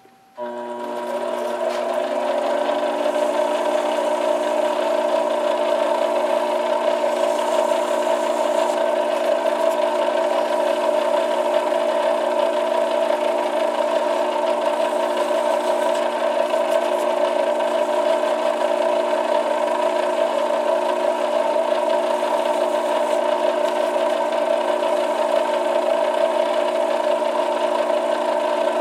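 Small metal lathe starting up about half a second in and spinning up, then running at steady speed with a steady mechanical whine and rattle from its motor and drive.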